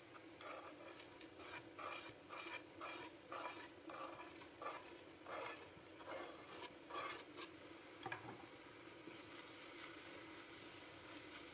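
Chopped walnuts being tipped from a wooden board into a saucepan of cooked grated apple: a run of short, quick sounds about two a second, then a knock about eight seconds in. After that a wooden spatula stirs the walnuts into the apple, more softly.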